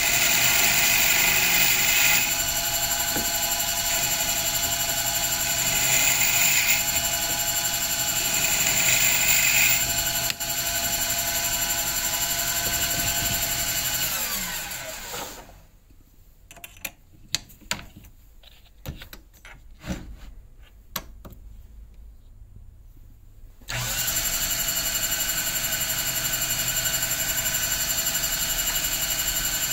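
Small cue-tip lathe motor running steadily, its cutter trimming a layered pig-skin leather cue tip in short passes during the first ten seconds. About halfway through the motor winds down and stops, leaving a few light handling clicks, then it starts again suddenly about three-quarters of the way through.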